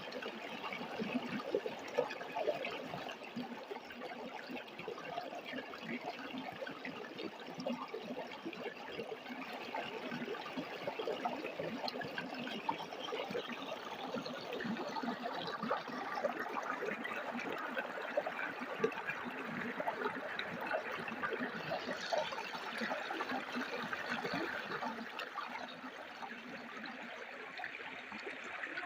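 Stream water flowing and splashing: a steady, trickling rush.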